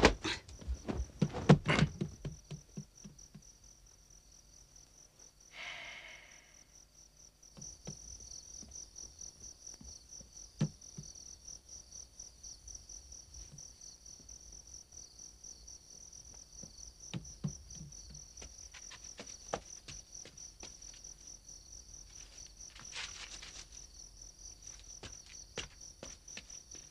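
Crickets chirping steadily in a high, continuous drone that grows louder after the first several seconds. It opens with a few loud thumps in the first couple of seconds, and scattered soft knocks and footsteps follow.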